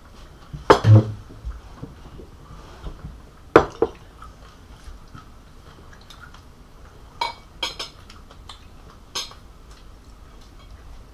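Tableware at a meal: a heavy knock about a second in and another near four seconds, like a glass set down on a wooden table, then a few light clinks of spoons and forks on plates.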